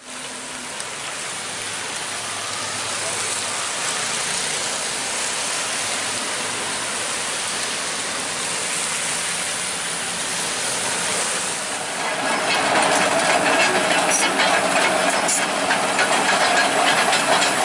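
A steady hiss; then, about twelve seconds in, it grows louder as a Kobelco tracked excavator's engine runs, with scattered sharp clicks and clanks.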